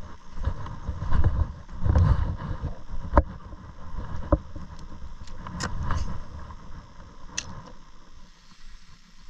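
Wind rumbling on an action camera's microphone in uneven gusts that die down near the end, with about five sharp clicks, the loudest about three seconds in.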